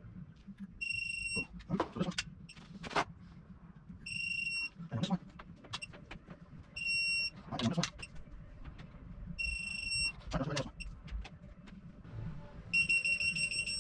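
Digital torque-angle wrench beeping for about a second each time a main cap bolt reaches its 80-degree final angle, four times about every three seconds, then a quicker run of beeps near the end. Between the beeps come short clicks from the wrench being worked on the bolts.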